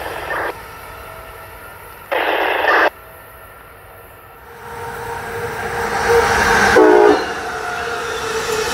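Train horn sounding: a short blast just after the start, then a louder blast of nearly a second about two seconds in. From about four and a half seconds, a rushing train noise builds up.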